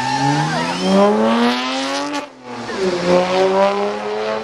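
Electric race motorcycles accelerating hard off the starting grid. Their motor whine rises steadily in pitch, breaks off sharply a little past two seconds in, then comes back and climbs again.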